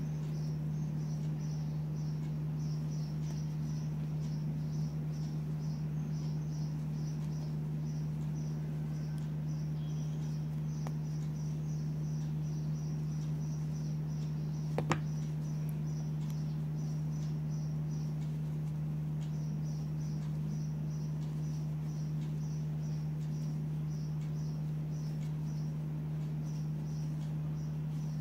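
A cricket chirping in an even, rapid pulse, about three chirps a second, over a steady low hum. The chirping stops for a couple of seconds a little past the middle, and there is one sharp click about halfway through.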